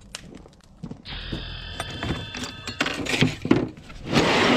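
Metal hand tools and sockets clinking and clattering as they are picked out of a round tool tray and set down on a plastic table, with one tool ringing briefly about a second in. A loud rustling scrape comes near the end.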